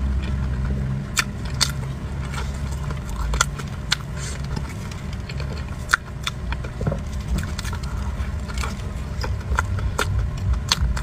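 Close-miked eating: irregular sharp clicks and smacks of mouth and lips chewing soft cream pastry, over a steady low rumble.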